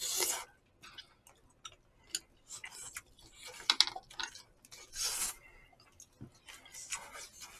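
Close-up eating sounds: chewing and scattered small clicks of chopsticks and a metal spoon against disposable food containers, with two short hissing sounds, one at the start and one about five seconds in.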